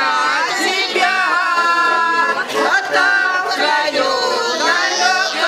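A man and women singing a Russian song together, accompanied on a garmon, the Russian button accordion.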